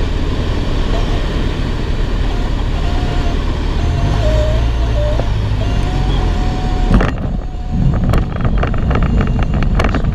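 Jodel DR1050 light aircraft landing on a grass strip: the throttled-back engine runs steadily under rushing air on the approach. About seven seconds in comes the touchdown, the rushing air drops away suddenly, and the undercarriage rattles and knocks over the rough grass during the rollout.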